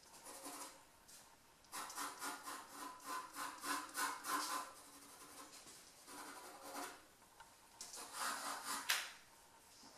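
Graphite pencil scratching across drawing paper in quick back-and-forth strokes, in four runs with short pauses between.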